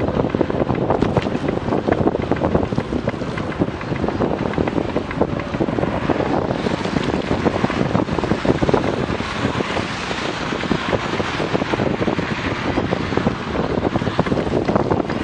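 Wind buffeting an action camera's microphone while cycling at about 23 km/h, with the hiss of tyres on a wet road and traffic driving alongside.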